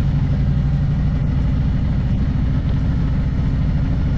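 Harley-Davidson Road Glide's V-twin engine running steadily at low speed.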